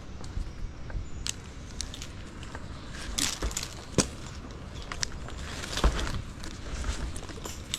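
Twigs and branches rustling and snapping, with scattered sharp cracks, the loudest about four and six seconds in; no saw is running.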